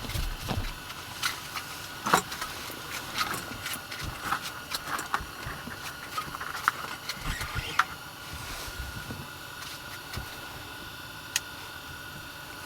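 Scattered small clicks and knocks over a steady faint high tone; the clicks thin out after about eight seconds.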